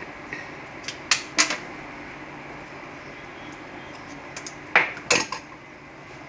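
Kitchenware clinking: two pairs of sharp clinks with a short ring after each, about a second in and again near the end, over a steady background hiss.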